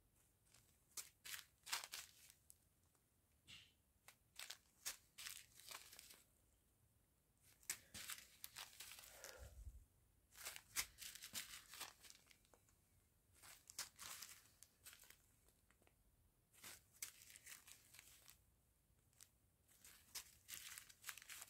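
Small clear plastic zip-lock bags of round diamond-painting drills crinkling and rustling as they are handled, faint and in short bouts with pauses between.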